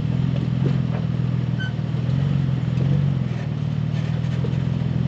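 Engine of an off-road SUV crawling at low speed, a steady low engine note that swells a little about two to three seconds in, with a few light knocks.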